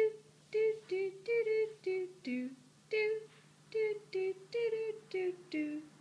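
A person humming a quick tune in short, separate notes, about two or three a second, the pitch stepping up and down.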